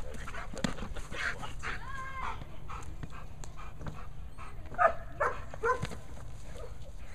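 German Shepherd barking repeatedly while straining on a leash toward a decoy in protection training, the drive barking of bite work. The loudest are three sharp barks in quick succession about five seconds in.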